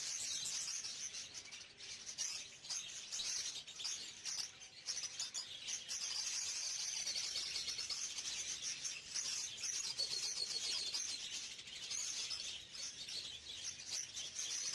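Many small caged birds chirping and chattering together in a dense, continuous chorus of high chirps.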